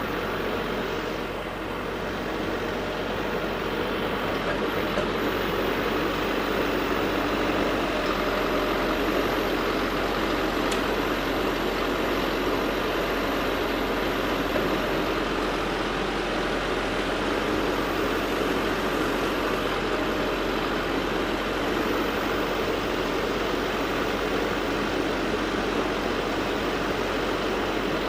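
A backhoe's diesel engine running steadily, with no change in pace.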